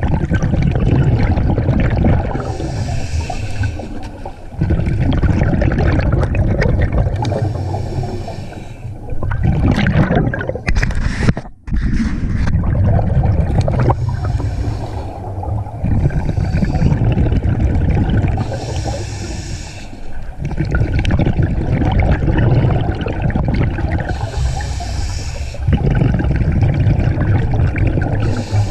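Underwater sound of a diver's breathing: exhaled bubbles rumbling and gurgling at length, broken every several seconds by a short hiss.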